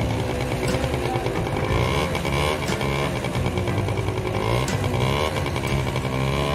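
Motorbike engine running as the bike pulls away, its pitch rising near the end.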